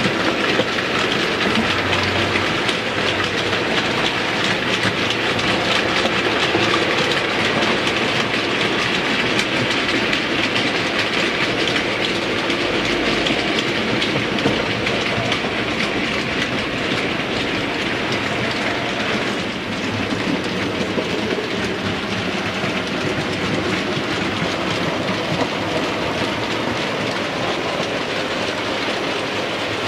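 OO gauge model trains running along the track close to the microphone: a steady rolling rumble and whirr, with rapid clicking of the wheels over the rail joints.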